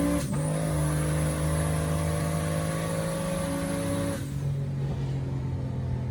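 A motor vehicle engine running at raised revs with a high whine. The pitch dips and climbs back once just after the start, holds steady, then falls away about four seconds in, leaving a lower steady engine hum.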